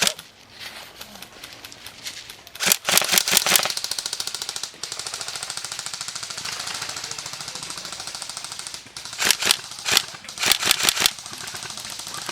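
Airsoft guns firing on full auto: a short burst of rapid shots about three seconds in, a long steady fainter rattle of shots through the middle, then several short bursts near the end.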